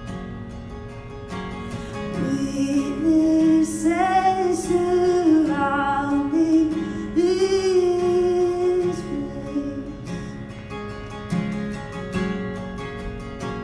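Song with a woman singing over plucked acoustic guitar. The voice comes in about two seconds in with a long, bending phrase and drops out around nine seconds, leaving the guitar playing alone.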